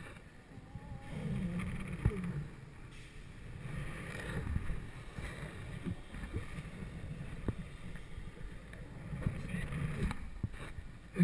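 Wind rushing over a helmet-mounted action camera's microphone as the rider swings on a rope swing, swelling and fading with the swing, with a few sharp knocks, the loudest about two seconds in.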